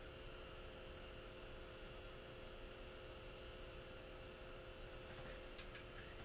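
Faint steady hum and hiss of a quiet room, with a few light clicks near the end.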